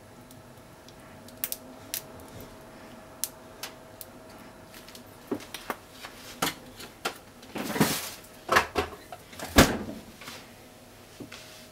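Kitchen handling sounds as mayonnaise is squeezed from a soft plastic tube over a bowl of stir-fry: scattered small clicks and taps over a faint steady hum that stops about halfway, then several louder knocks and a short clatter in the second half.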